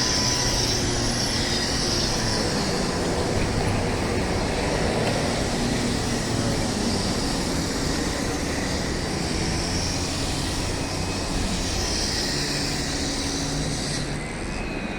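A train running steadily past: a continuous rumble with a low hum and a faint high whine over it.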